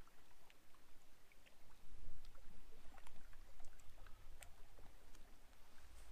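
Quiet handling of a bait tub and hook while baiting up with maggots: a few small, scattered clicks over a low rumble.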